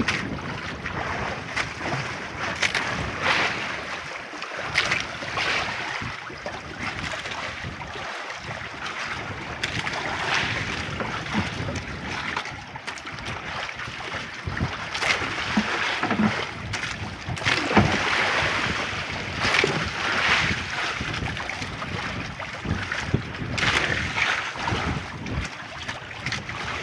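Strong wind buffeting the microphone in gusts over choppy sea, with waves splashing against a small outrigger boat's hull and outrigger floats.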